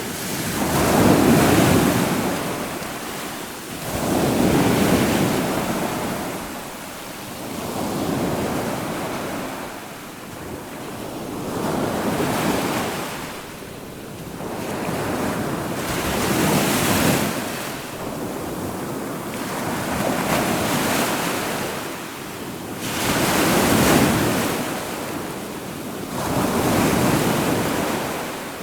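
Ocean surf: waves breaking and washing in, swelling and fading about every three to four seconds.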